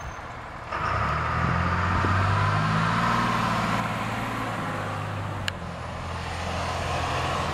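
A motor vehicle engine running, a steady low hum that comes in about a second in and eases off after about five seconds. There is one sharp click near the middle.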